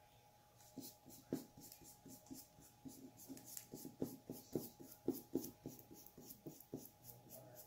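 Small paintbrush scratching and dabbing black paint onto a rock, a quick run of short strokes, about three or four a second, starting about a second in.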